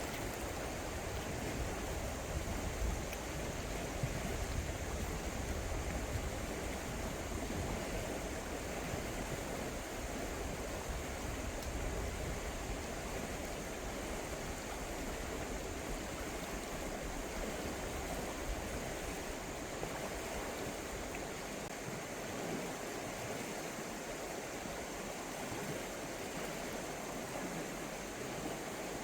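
Steady sound of river water flowing.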